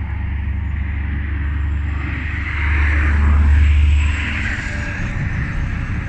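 A steady low rumble with a hiss above it, swelling louder about two and a half seconds in and easing back after about four seconds.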